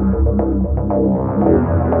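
Background music: an electronic synthesizer track with sustained bass notes and plucked notes over them.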